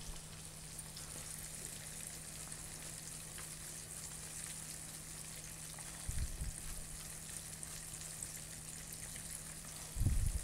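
Breaded fish frying in hot oil in a wok: a soft, steady hiss. Two dull low thumps, about six seconds in and again near the end.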